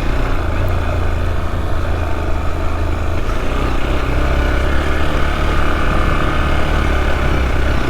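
Motorcycle engine running steadily while riding along, a deep even rumble with a haze of road and wind noise over it.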